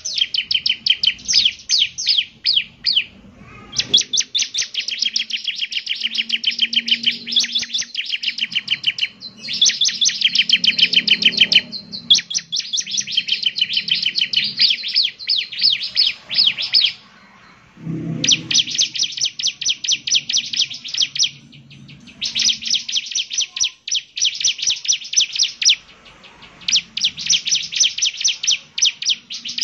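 Bar-winged prinia (ciblek) singing: long, rapid trills of quickly repeated high notes, in stretches of several seconds broken by short pauses.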